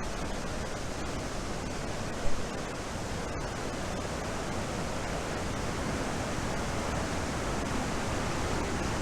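Steady rush of a waterfall in full flood, swollen by Hurricane Ida from its usual trickle into a torrent. A single brief thump about two seconds in.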